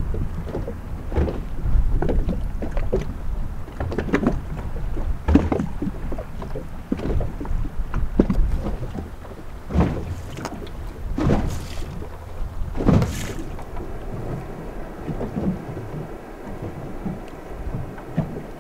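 Wind rumbling on the microphone and water against the hull of a small fishing boat, with irregular knocks and splashes, three sharper ones in the middle.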